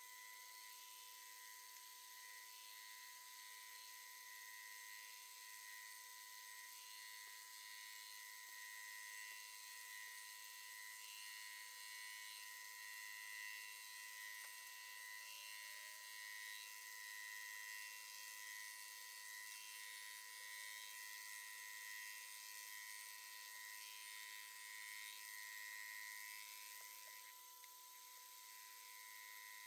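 TOS milling machine running, its sound sped up tenfold into a faint, steady high-pitched whine.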